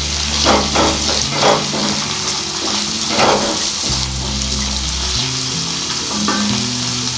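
Chopped onions and green capsicum sizzling as they fry in ghee and butter in a kadhai. A wooden spatula stirs them, scraping the pan several times in the first few seconds.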